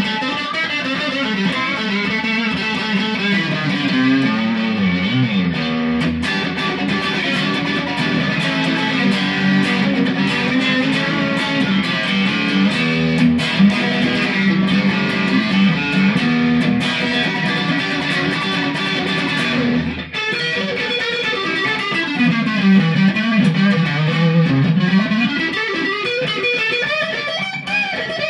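Fender Sixty Six electric guitar on its neck pickup, played through an amp with a Keeley El Rey Dorado overdrive pedal at low drive: sustained overdriven lead lines with bent notes, with a brief break about twenty seconds in.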